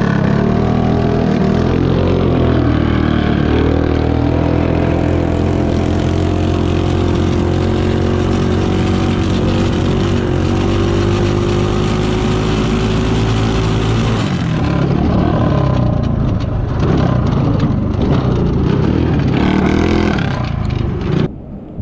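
Yerf-Dog go-kart's stage 4 Wildcat 223cc single-cylinder engine running hard under load. Its note climbs over the first several seconds and holds high, then drops back about two-thirds of the way through, rising and falling again after that.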